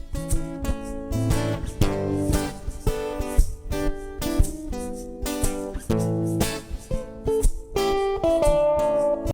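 Guitar strumming chords in a steady rhythm, an instrumental lead-in to a song.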